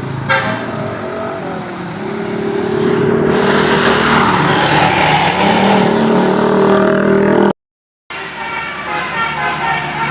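Bus telolet horn (Basuri type) sounding strings of melodic notes while a bus passes close, its engine and tyre roar swelling. The sound drops out completely for about half a second near the end, then rapid horn notes resume.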